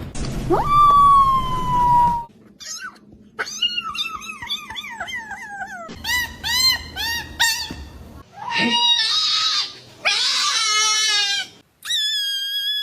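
Domestic cats calling: a string of varied meows and chirping calls, some long and held, some short and rising and falling, with brief breaks between them.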